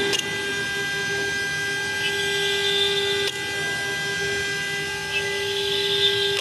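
CNC router spindle whining steadily at high speed while drilling holes in acrylic sheet. A hissing cutting sound rises about two seconds in and again near five seconds in, each lasting about a second as the bit plunges into the plastic.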